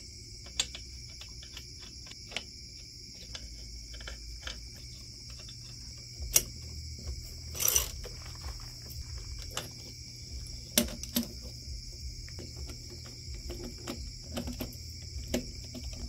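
Scattered metallic clicks and clinks of a ratchet and socket on a tractor wheel's lug nuts, the sharpest about six seconds in, over the steady chirring of crickets.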